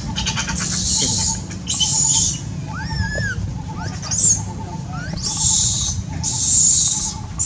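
Infant long-tailed macaque crying: about five shrill screeches, each about half a second long, with thin high whimpers that rise and fall between them.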